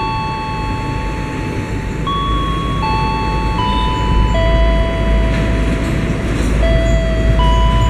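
Electronic chime playing a slow melody of long held notes that change about every second, over the low rumble of an approaching diesel train, which grows stronger about halfway through.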